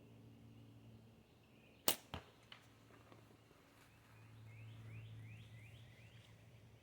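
A slingshot shot: one sharp crack about two seconds in, followed about a quarter second later by a second, fainter crack and then a small tick. Repeated short rising chirps carry on in the background.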